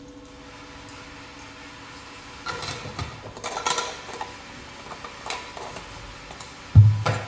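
Parts of a manual meat grinder clicking and knocking together as it is put together by hand, with a cluster of clicks about halfway through and one heavier knock near the end.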